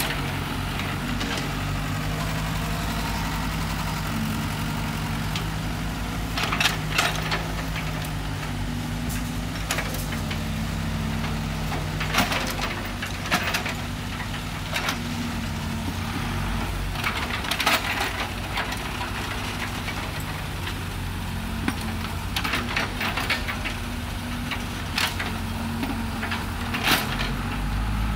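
Mini excavator's engine running steadily, its note shifting about midway, with scattered sharp metallic clanks.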